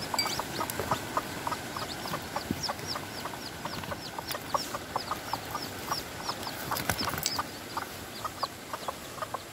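Newly hatched bantam chicks peeping: a steady run of short, high, falling peeps, several a second. A few light knocks come about seven seconds in.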